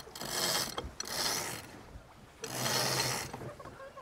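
Lines running through blocks and a sheet winch as a roller-furling jib is unrolled: three separate hauls, each under a second long, with short pauses between.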